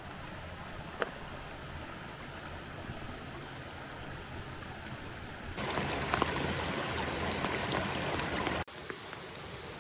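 Running river water, a steady rushing noise. About five and a half seconds in it jumps abruptly to a louder rush with small splashes, then drops back sharply near the end.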